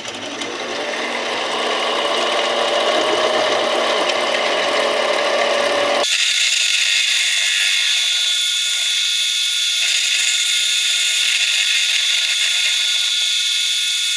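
Central Machinery 7x10 mini lathe running with the chuck spinning a steel bar, its motor whine rising slowly in pitch. About six seconds in the sound changes abruptly to a higher-pitched, steady whine and hiss as the facing cut across the bar's end plays back sped up six times.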